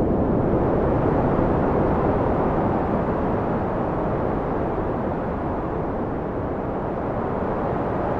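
Steady wind blowing, a low rushing noise that swells slightly and then eases off gently toward the end.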